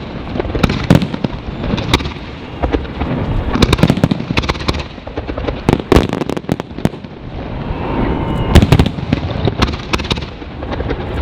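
Fireworks display: many shell bursts and bangs going off in quick, irregular succession, with a dense cluster of bangs about six seconds in.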